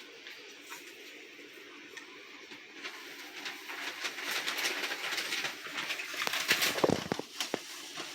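Rustling and crackling of hay or bedding being handled in a guinea pig cage, starting about three seconds in and growing louder, with a heavier bump about seven seconds in.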